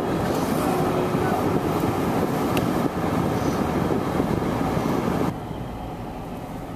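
A crowd of many voices with shouting, over the running noise of a vehicle. About five seconds in it cuts abruptly to a quieter, steady hum of a car driving, heard from inside.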